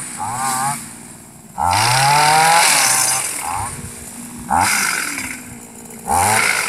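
Motorized sickle-type palm cutter on a 15-foot pole revving up and down in bursts as it works at the palm fronds, with short dips between the bursts.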